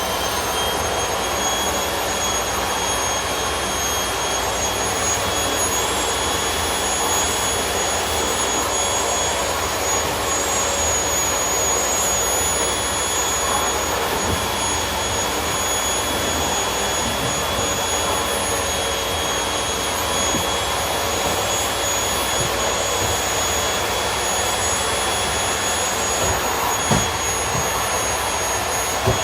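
Household vacuum cleaner running steadily, its motor giving a constant high whine over a rushing airflow noise. Two light knocks come near the end.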